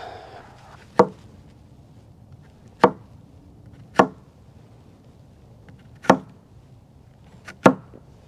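Sharp chopping blows, five of them at uneven gaps of one to two seconds, the last a quick double stroke.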